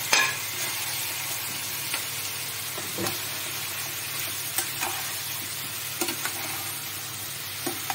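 Whole baby eggplants and potato pieces sizzling steadily as they fry in masala in a pan, stirred with a spatula that knocks against the pan a few times.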